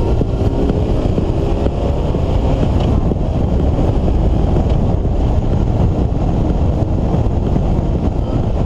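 A car driving on a wet road in the rain: steady engine and tyre noise with wind rumbling on the microphone.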